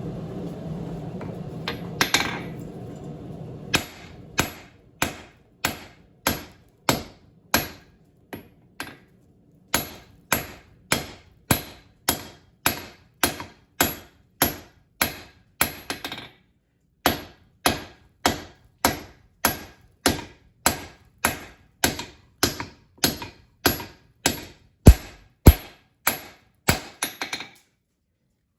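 Hand hammer blows on steel over an anvil, a steady run of about one and a half strikes a second, each with a short ring: a jackhammer bit being drawn out by hand forging. A steady hum underlies the first few seconds and stops before the hammering settles in.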